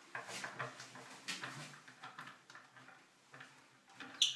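Hands turning a square rain shower head onto its chrome shower arm: soft rubbing and scraping strokes, busiest in the first second and a half, then a short, sharp, high squeak near the end.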